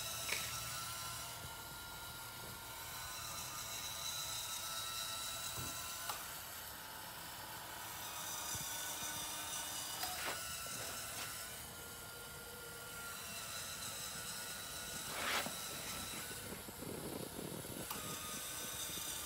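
Small electric drive motors of an automated model coal loader running with a steady high whine, with a few sharp clicks from its mechanism.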